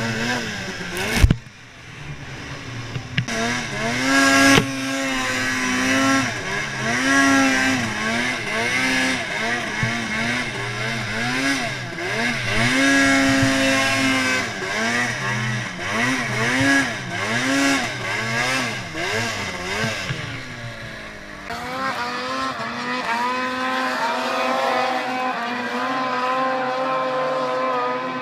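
2012 Arctic Cat M800 two-stroke snowmobile engine with an aftermarket HPS exhaust can, revving up and down over and over under load in deep snow, with two sharp knocks in the first five seconds. About 21 seconds in the engine note turns thinner and steadier.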